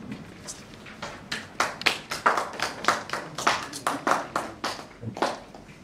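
Scattered sharp clicks, several a second and irregularly spaced, for about four seconds, like a few handclaps or taps.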